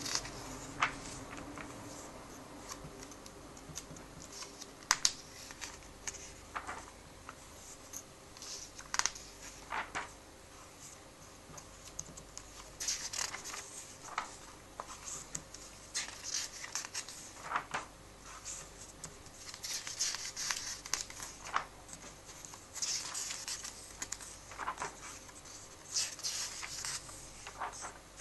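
Paper pages of a comic book turned by hand: intermittent swishing and rustling of the pages, with a few sharp clicks.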